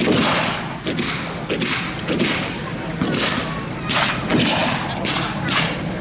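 Scattered rifle fire from a mock WW2 battle: about ten irregular shots of blank ammunition, roughly two a second, each with a short echo.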